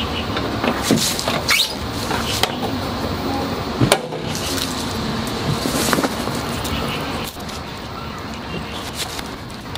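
Clicks and knocks of a van's rear-door trim panels being handled and pulled at their clips, the sharpest knock about four seconds in, over a steady outdoor background hum.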